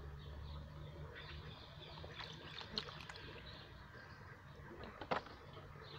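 Faint rustling and scuffling with scattered light clicks, one sharper click about five seconds in, over a low rumble.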